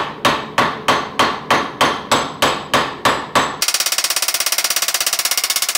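Hand hammer blows on a hot steel blade on an anvil, about three ringing strikes a second, during forging. A little over three seconds in they give way to a very fast, even rattle of strikes.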